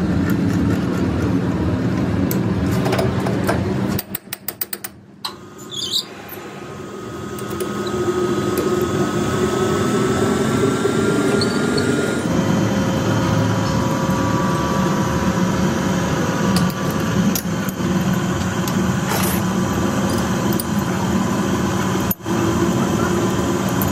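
A machine running steadily with a low hum. The sound drops out about four seconds in, with a few clicks, then builds back up over the next few seconds and runs on steadily.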